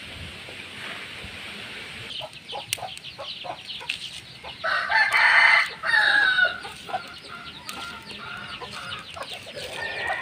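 Chickens clucking with short repeated calls, and a rooster crowing once, loudly, about halfway through.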